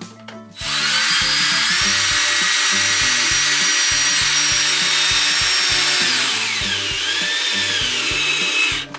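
Cordless drill running continuously for about eight seconds, a loud high-pitched motor whine that starts about half a second in, sags in pitch about two-thirds through, climbs again and cuts off just before the end.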